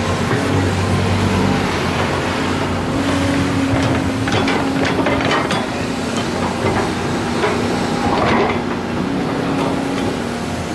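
Volvo EC210 excavator's diesel engine running steadily under load, with clusters of sharp knocks and clatter about four to six seconds in and again near eight seconds.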